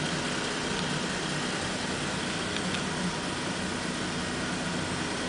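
2007 Nissan Altima's engine idling, a steady hum with hiss over it.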